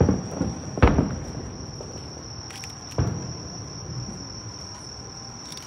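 Distant fireworks bursting, several booms with echoing tails in the first second and one more about three seconds in, over a steady high-pitched trill of insects.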